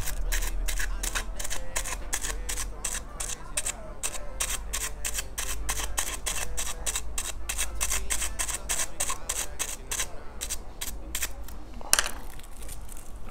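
Aluminium foil stretched over a pineapple shisha bowl being pierced again and again with a hole poker to make the air holes: a quick run of small clicks, about four or five a second, that stops shortly before the end, then one louder click.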